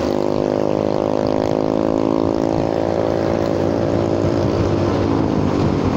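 Motorcycle engine running at high revs: a steady pitched note that drifts slightly lower and fades out near the end, over wind and tyre noise on a wet road.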